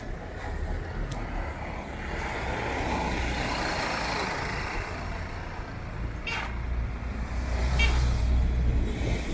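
Road traffic passing on a wet road: engines rumbling and tyres hissing on the wet asphalt, swelling as vehicles go by. Two short sharp sounds come about two-thirds of the way through, and the engine rumble is loudest near the end.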